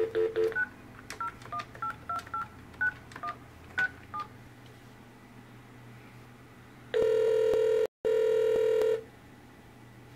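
Analog desk phone on speakerphone, dialing through a VoIP adapter: a pulsing dial tone stops about half a second in as the keypad is pressed, followed by about ten short touch-tone (DTMF) beeps as a number is dialed. A few seconds later comes one loud two-second ringback tone as the call rings through.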